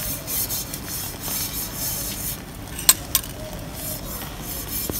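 A bristle brush swished back and forth across a hot plate, spreading cooking oil in repeated strokes, with two sharp clicks about three seconds in.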